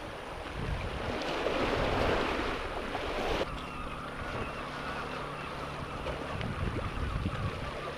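Sea washing against the rocks, with some wind on the microphone. A swell of surf around two seconds in cuts off suddenly, leaving a quieter, steady wash.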